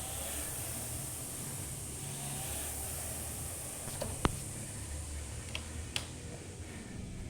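Steady background noise with a few sharp knocks, the loudest about four seconds in and two lighter ones a little later.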